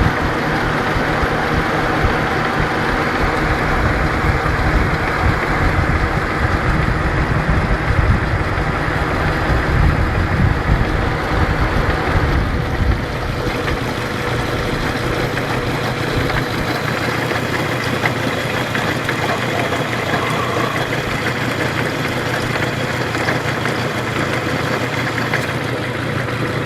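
Honda G20A inline five-cylinder engine idling steadily with a rapid, rhythmic knock whose source has not been found. It runs a little quieter from about halfway through.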